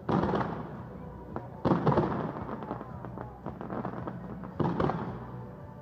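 Fireworks going off: three loud bangs, about a second and a half to three seconds apart, each trailing off over about a second, with scattered crackling between them.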